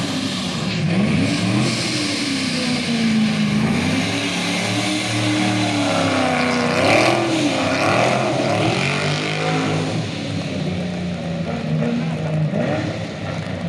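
Rally car engine revving as it drives, its pitch rising and falling repeatedly through gear changes and throttle lifts. The revs climb highest about seven seconds in.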